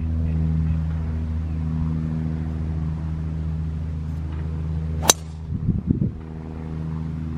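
A golf driver striking a teed ball: one sharp, loud crack about five seconds in, over a steady low motor hum.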